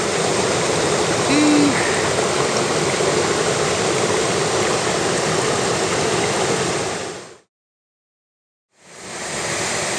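Rushing water of a mountain stream, a steady hiss, with a brief pitched sound about a second and a half in. It fades out about seven seconds in, and after about a second and a half of silence the water sound returns.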